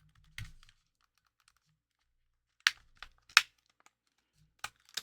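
A handful of sharp, irregular clicks and taps as small plastic and metal parts of a game console are handled and fitted during reassembly, the loudest two coming about two and a half and three and a half seconds in.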